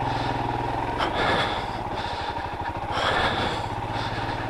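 Royal Enfield Himalayan's single-cylinder engine running at steady low revs under riding noise, with short swells of noise about a second in and again near three seconds.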